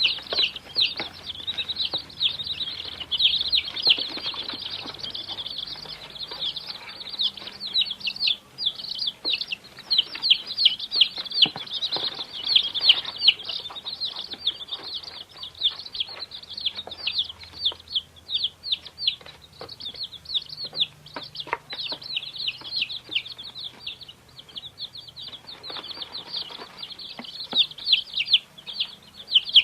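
Many chicks peeping at once: a dense, continuous chorus of short, high-pitched cheeps overlapping one another, with a few soft scuffs and taps among them.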